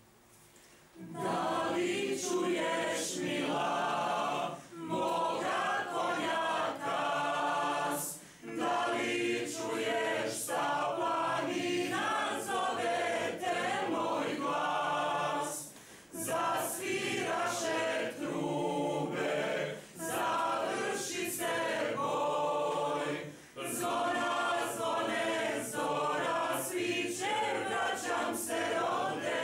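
Mixed choir of men and women singing a cappella. The singing begins about a second in and goes on in phrases, with short breaks between them.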